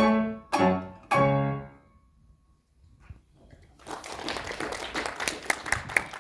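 Plucked string instrument and piano ending a folk-dance piece with three strong closing chords, the last one ringing away. After a pause of about two seconds, audience applause starts and grows.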